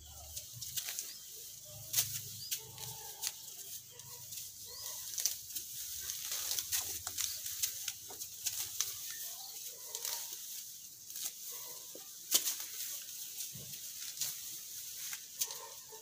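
Grass and weeds rustling and snapping as they are pulled up by hand, with irregular sharp crackles throughout.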